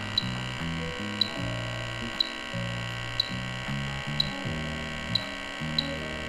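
Bacharach H10 Pro refrigerant leak detector ticking at a slow, even rate, about once a second, over a steady electrical hum, with its probe held at a slightly opened R-410A jug valve. The rate does not pick up into a fast alarm.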